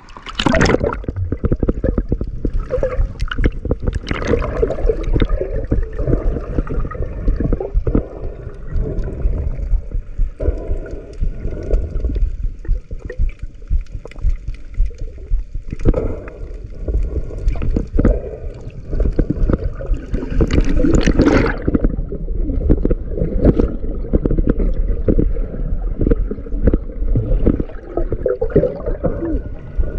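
Seawater gurgling and sloshing around a diver in the sea, in irregular surges, with a louder rush about two-thirds of the way through.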